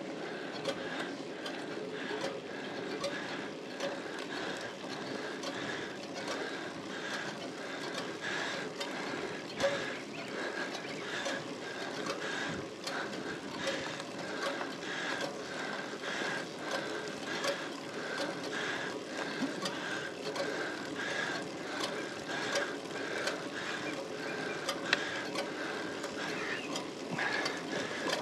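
Road bike drivetrain under load on a steep climb: the chain running over the gears with a steady run of short mechanical ticks and a faint whine.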